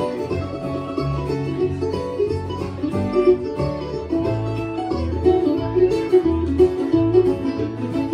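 Bluegrass band playing an instrumental passage: banjo and guitar picking over a bass line that moves about every half second.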